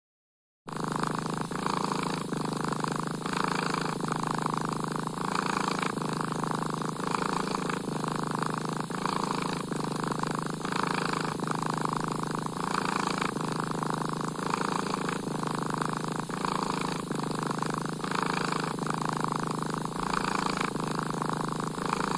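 Cat purring steadily, swelling and fading with each breath about once a second; it starts just under a second in and cuts off abruptly at the end.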